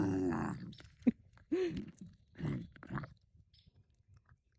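Bobcat eating: a wavering, pitched vocal sound trails off in the first half-second, then a few separate chews and bites with one short pitched grunt among them, dying away after about three seconds.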